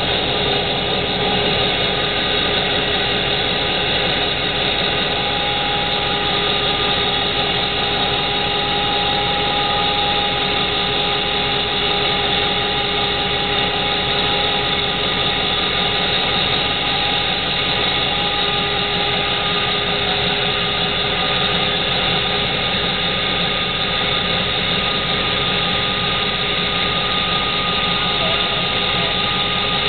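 Caterpillar D399 V16 diesel engine on a dredge pump running loud and steady at an unchanging speed, with several constant tones over its noise.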